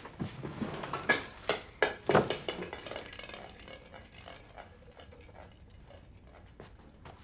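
Hard objects clattering and knocking as things are rummaged and shifted on cellar shelves: a quick run of sharp knocks in the first two and a half seconds, then fainter scattered clicks.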